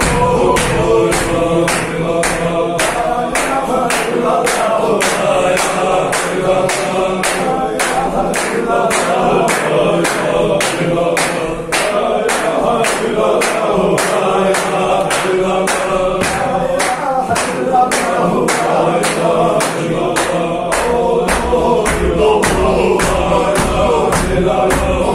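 Group of men chanting a loud Sufi zikr of the Kunta-Hajji tradition in unison. Steady hand claps mark the beat at about two a second.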